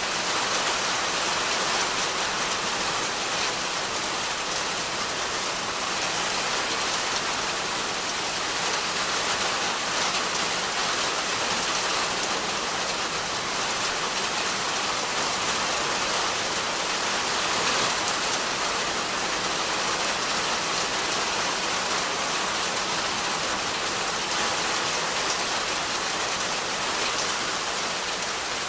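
Steady rain falling on the leaves of dense trees and undergrowth, an even hiss that stays level throughout.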